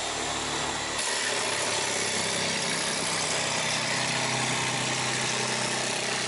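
Ryobi CJ-250 jigsaw running steadily as it saws through 4 mm plywood, pulled along a guide rail by a weight. The tone shifts about a second in. The weight drives the feed too fast, which the maker blames for the very ragged cut edge.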